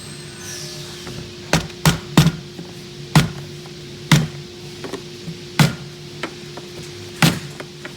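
Rubber mallet striking a polycarbonate wedge to drive door panel trim out of its channel: seven sharp knocks at uneven intervals, over a steady low hum.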